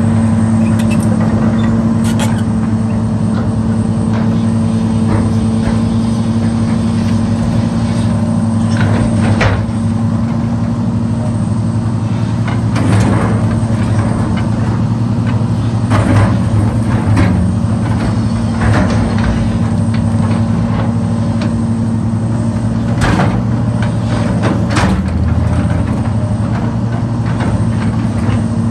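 John Deere 470G excavator's diesel engine running steadily as the machine works, with irregular sharp clanks of the steel bucket knocking against broken concrete and rubble.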